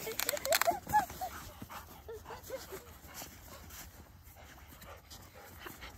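A dog whining and yipping in short, high calls, with a cluster of them in the first second and a few fainter ones about two seconds in.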